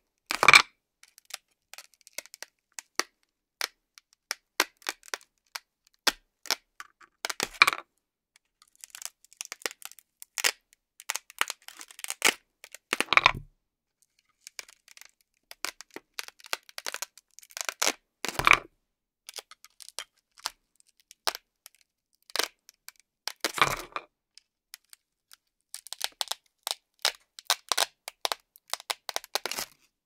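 Velcro hook-and-loop fastening tearing apart in five short crackly rips, about five seconds apart, as wooden toy food pieces are cut and pried off a Velcro-covered plate with a knife. Fainter scattered crackles come between the rips.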